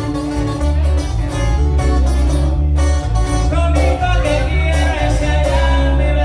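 Live band playing through amplifiers: electric bass carrying a heavy, steady bass line under strummed acoustic guitars, with a singer's voice joining mainly in the second half.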